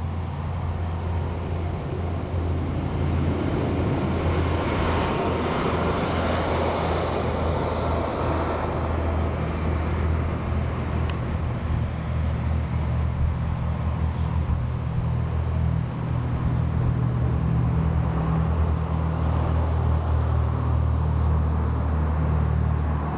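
Jeep Wagoneer driving at road speed: a steady low engine and road drone. A broader rushing hiss swells about four seconds in and eases off a few seconds later.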